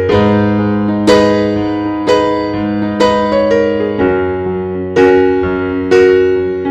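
Background music: slow piano chords struck about once a second, each ringing and fading before the next.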